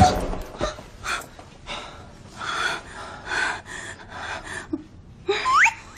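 A person's short breathy gasps, one after another, then a brief high rising squeal near the end.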